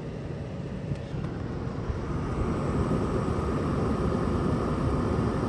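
LG Dual Inverter window air conditioner running, its fan and variable-speed compressor ramping up: a steady airy rush that grows louder from about two seconds in, with a steady whine coming in at the same time.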